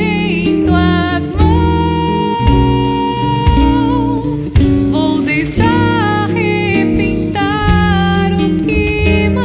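Slow worship song played live by a small band: a woman singing into a handheld microphone over upright bass, acoustic guitar and drums, with one long held note early on.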